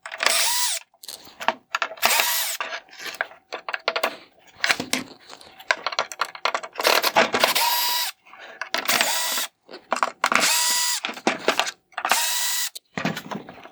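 A power drill backs out the Phillips screws that hold a headlight lens to its housing. It runs in several short bursts of about a second each, and its motor whine rises at the start of each burst, with pauses between screws.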